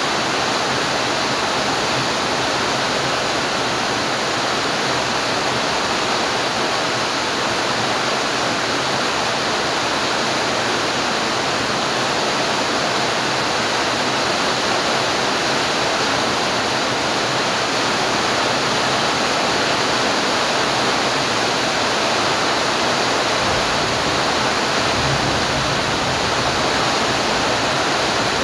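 Rain falling steadily and heavily, a dense, even rush of noise that stays at one level throughout, with a faint low rumble near the end.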